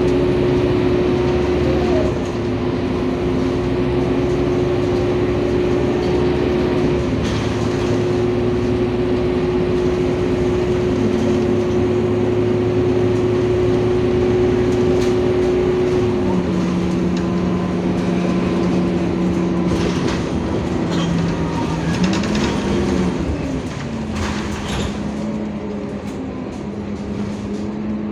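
Euro 4 Scania single-deck diesel bus heard from inside the passenger cabin while driving: a steady engine and drivetrain drone with a whine whose pitch steps down about halfway through, dips and rises again about three quarters in, then settles lower. A few short knocks come in the later part.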